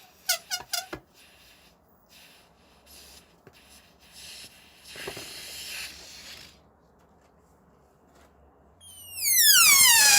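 Rubber balloon deflating through a tightly stretched neck. It gives a few short squealing bursts at the start, then faint hissing and rubbing of the rubber. About nine seconds in comes a loud squeal that starts high and falls steadily in pitch.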